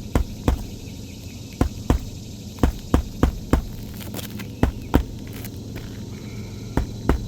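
Irregular sharp taps and knocks from hand work on asphalt roof shingles, about a dozen in all, over a steady low hum.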